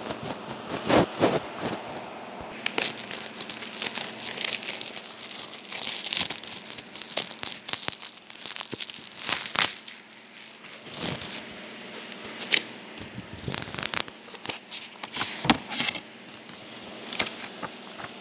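Plastic shrink-wrap crinkling and tearing in irregular bursts as it is pulled off a book.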